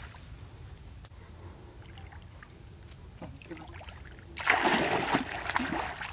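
Pond water sloshing and splashing as a person wades in. Faint lapping at first, then a loud rush of splashing about four and a half seconds in, lasting over a second.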